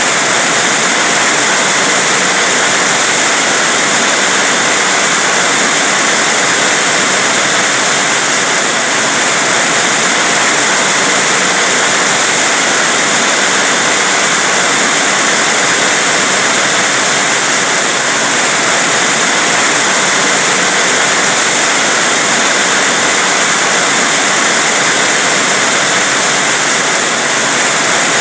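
Heavy rain falling steadily: a dense, unbroken hiss of rain with no distinct drops or thunder standing out.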